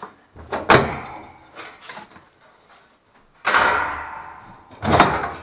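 Sheet-metal access panels of a Trane XE90 gas furnace being pulled off and set aside: a sharp metal knock just under a second in, a longer clatter that rings away a little past halfway, and another sharp knock near the end.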